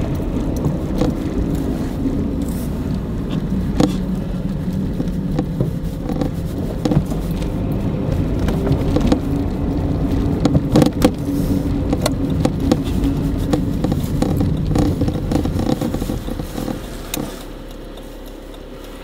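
Car driving on packed snow, heard from inside the cabin: a steady engine and tyre rumble with scattered knocks and crackles. The rumble drops to a quieter, steadier level near the end as the car comes to a stop.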